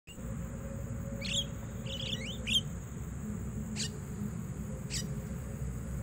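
Mynas (jalak) giving short, sharp calls that drop in pitch: one a little over a second in, a quick run of three or four around two seconds, then single calls near four and five seconds. A steady high-pitched tone runs underneath.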